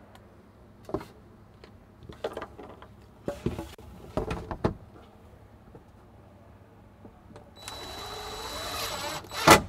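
Cordless drill driving a screw through a plastic transfer switch box into the wall: the motor whirs for about two seconds near the end, rising in pitch, and finishes in a loud short burst. Before that, light clicks and knocks of the box and screws being handled.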